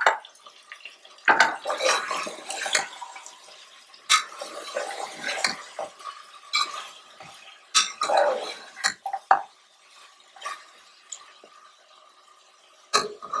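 Metal slotted spoon scraping and knocking against the inside of an aluminium pressure cooker while stirring thick mutton masala, in irregular strokes with short pauses.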